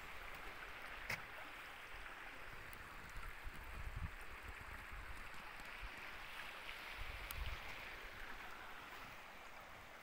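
Steady rush of a mountain stream running over rocks, with a few low rumbling bumps.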